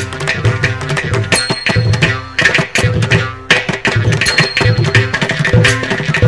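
Instrumental music in an Indian classical style, with fast hand-drum strokes over sustained pitched notes.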